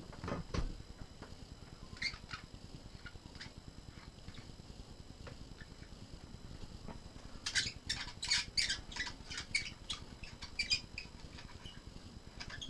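Yunteng VCT-288 monopod being handled: a low knock just after the start, then scattered clicks. About halfway through comes a quick run of sharp squeaks and clicks from its plastic and metal parts, lasting a few seconds.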